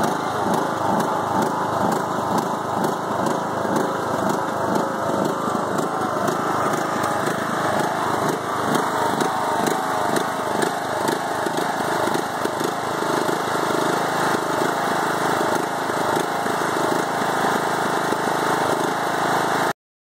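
Briggs & Stratton Intek 20 HP engine on a Craftsman riding mower running, settling about five or six seconds in into a rough, uneven idle with an irregular beat. The rough idle appeared after a head gasket replacement, and the engine also bogs under mowing load.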